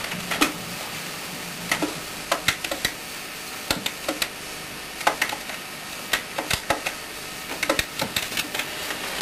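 Push-button telephone keys clicking as a number is dialled with the handset lifted, about twenty short clicks at uneven spacing.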